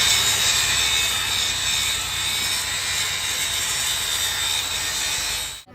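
Steady hissing grind of a power tool working metal, with a high whine held throughout; it cuts off suddenly near the end.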